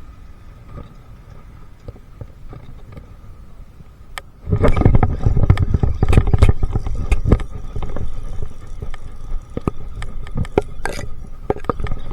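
Knocks, scrapes and rumbling in a small fishing boat. They start suddenly about four and a half seconds in and go on as a dense, irregular run of sharp knocks.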